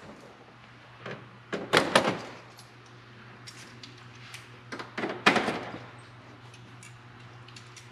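Sheet-metal parts knocking and rattling as a galvanized steel firewall is set in place against an aluminium fuselage: two clusters of clatter, about two seconds in and about five seconds in, over a faint low hum.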